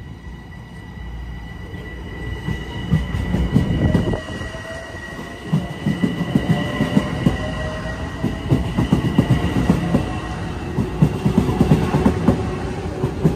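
Metro-North commuter train running in alongside the platform. A steady high whine sits over a low rumble and the uneven clatter of wheels on rail joints, growing much louder over the first few seconds as the train comes close.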